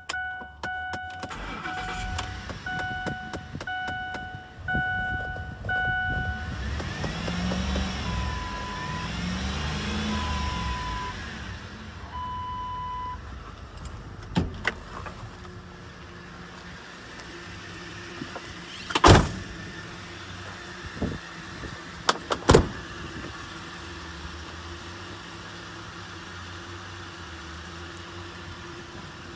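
Ford F-150 V8 pickup engine running with a dashboard warning chime dinging about once a second, then revved twice while a single-tone chime beeps three times. After that the engine settles to a steady idle, with two sharp thuds a few seconds apart past the middle.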